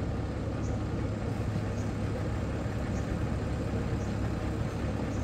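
Kubota DC-70 combine harvester's diesel engine running steadily with a deep, even hum while its threshing and grain-handling machinery turns during bagging of rice. A faint high tick repeats about once a second.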